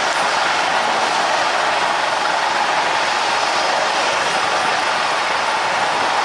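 Aircraft turbine engines running: a steady, even rush of noise with no break or beat.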